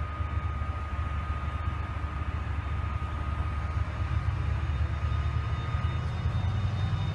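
Class 68 diesel-electric locomotive's Caterpillar V16 engine running with a heavy low rumble and a thin steady high whine, growing louder in the second half as it begins to power away.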